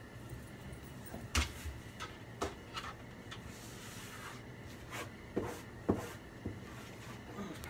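Hands wiping out the inside of an under-sink kitchen cabinet with a wipe: scattered knocks and taps against the cabinet, the loudest about a second and a half in and just before six seconds.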